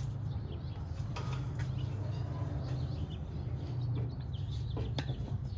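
Birds chirping faintly over a steady low hum, with a few light clicks and knocks from a metal wire shelf being picked up and moved.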